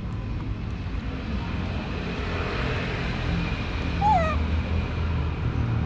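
Steady low hum of road traffic that swells to a broad rush in the middle, with one short falling squeak about four seconds in.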